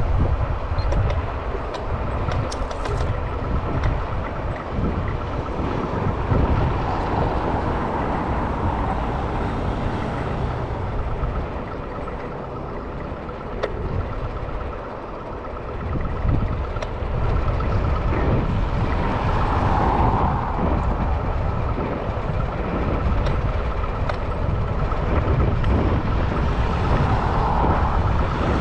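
Electric scooter ride heard from the rider's camera: steady, gusting low rumble of wind on the microphone and wheels rolling over pavement, with a faint steady hum.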